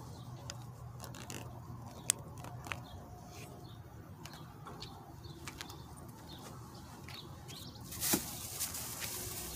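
A plastic bag crinkling and rustling in someone's hands from about eight seconds in, after a stretch of faint scattered clicks and light rustles.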